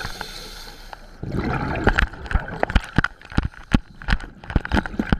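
Turbulent water churning at the Oconee nuclear station's cooling-water discharge, a steady wash of water with many sharp, irregular slaps and splashes from about a second in.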